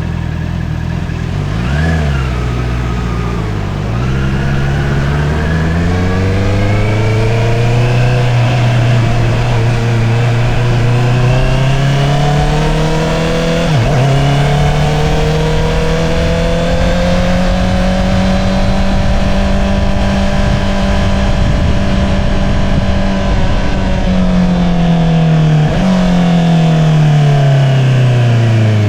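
Honda CBR650R's inline-four engine through an Akrapovič single-outlet exhaust, under way: a quick rev blip about two seconds in, then a long steady climb in revs with a brief dip about halfway, a hold, and the revs falling away near the end as the throttle eases off.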